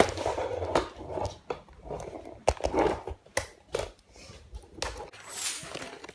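Handling noise from a camera and tripod being moved about: a run of sharp knocks and clicks with rustling between them. Near the end comes a hissy rustle as a packaged hub box is handled.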